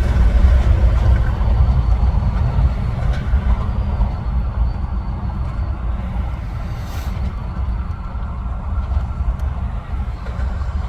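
Steady low rumble of heavy traffic crossing an interstate highway bridge, with trucks among the vehicles; it eases off slightly in the second half.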